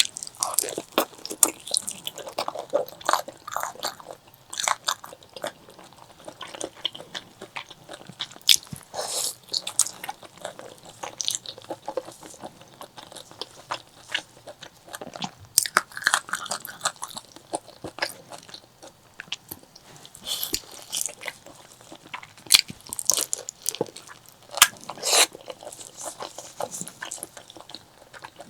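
Close-miked eating: a person chewing and biting into spicy pork leg curry, with irregular wet mouth clicks, smacks and occasional crunchy bites.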